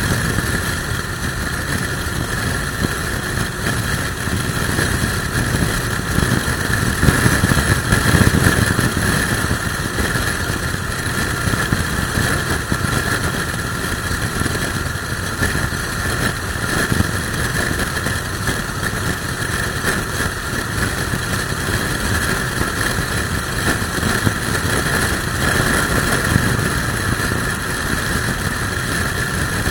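Suzuki Bandit motorcycle cruising at a steady engine speed, with heavy wind buffeting the microphone from a strong crosswind. The wind rumble swells briefly about a quarter of the way in.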